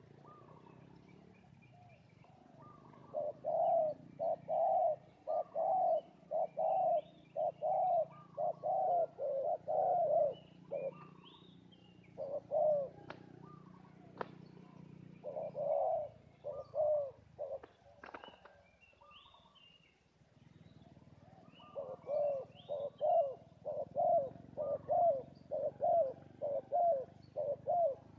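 Spotted doves cooing: short coos of about two a second, in three bouts with pauses between them. Faint chirps of smaller birds sound above them.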